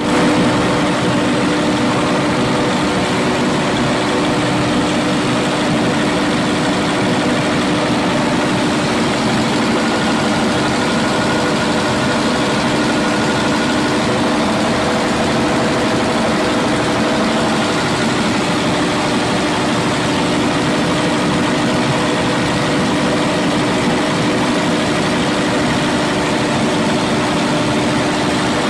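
Caterpillar C32 V12 diesel generator engine running at a steady speed, a constant loud hum with no change.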